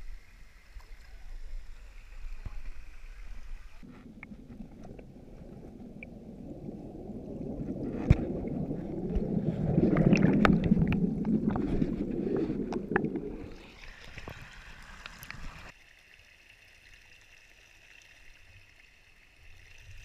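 Creek water heard with the camera at the surface, then, about four seconds in, with the camera plunged underwater: a muffled rushing of bubbling water with sharp clicks, loudest near the middle. A few seconds before the end it cuts to quieter water running over rock.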